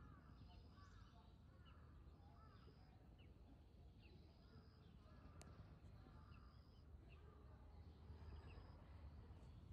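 Near silence of outdoor ambience: faint distant bird chirps, with a short high note repeating every second or so, over a low steady rumble. One faint click about five and a half seconds in.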